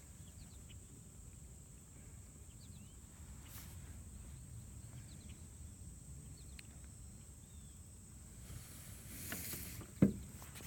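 Quiet open-air ambience on the water: a steady low rumble with scattered faint, short chirps. A brief hiss comes about nine seconds in, and a single sharp knock about ten seconds in.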